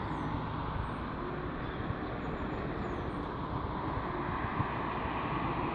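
Steady outdoor background noise, an even rushing hiss with no distinct event.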